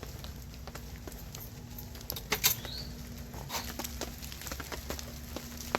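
Light clicks, taps and clatter of cooking gear and food packages being handled, loudest about two seconds in, over a steady low rumble. A short rising chirp sounds about halfway through.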